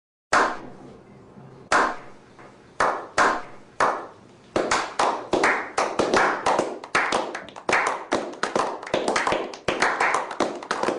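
Hand clapping with an echoing tail on each clap: a few scattered claps, then steady clapping from about four and a half seconds in.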